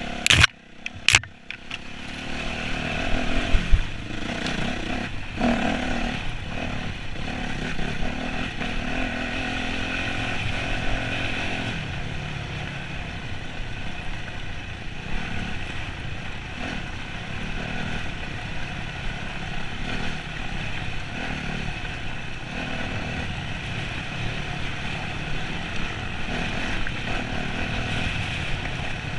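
Enduro motorcycle's engine running steadily as the bike is ridden over a rough trail, with a few sharp knocks in the first couple of seconds.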